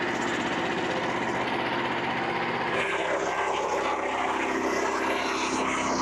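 Frontier OS27 bandsaw mill's small gas engine running steadily under way, its note changing about halfway through.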